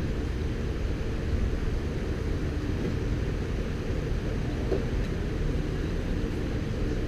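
Steady, heavily muffled low rumble of outdoor background noise, with no distinct event standing out.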